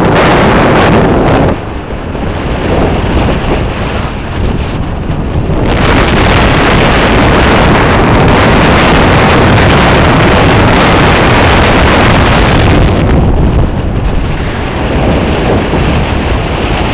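Heavy wind noise buffeting the microphone of a camera on a bicycle rolling fast downhill. It is loud, eases off about a second and a half in, swells back up around six seconds, and eases again near the end.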